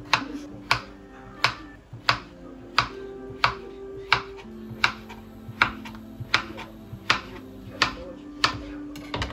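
Kitchen knife chopping a cucumber on a cutting board: a sharp tap of the blade on the board about three times every two seconds. Background music plays underneath.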